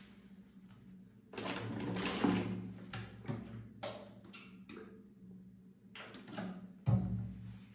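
Rustling and clattering as toiletry containers are handled and moved about, with a sharp thump near the end as something is set down or knocked.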